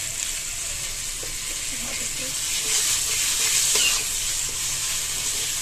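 Onion-tomato masala with red chilli powder sizzling in hot oil in a kadhai while a metal spatula stirs it, a steady frying hiss that swells a little midway.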